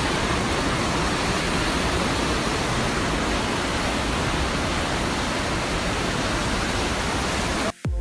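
Whitewater rapids rushing through a narrow rock gorge, a loud steady rush of water that cuts off suddenly near the end.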